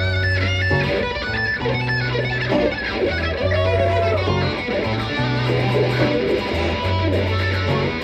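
Live amplified electric guitar played on a sunburst hollow-body guitar: a lead part with bent notes that slide up and down in pitch, over a bass line of long, low, held notes.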